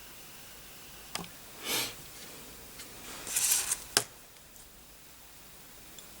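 A few sharp clicks and two short bursts of hissing, rustling noise over a faint steady hiss; the loudest is a single sharp click about four seconds in.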